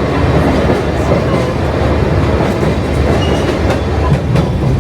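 Sagano Romantic Train running along the track, heard aboard: a steady rumble with a few sharp clacks of the wheels over the rails in the second half.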